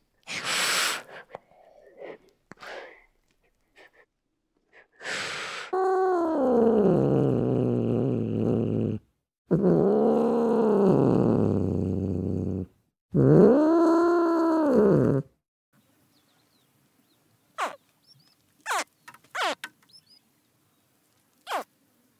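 An animal calling: a short breathy snort near the start and another about five seconds in, then three long low calls of two to three seconds each, the first sliding down in pitch and the next two rising and then falling. A few short, faint high chirps follow near the end.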